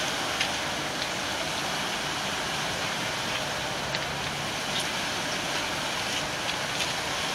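Steady rush of water flowing past a concrete weir, an even unbroken noise, with a few faint light ticks over it.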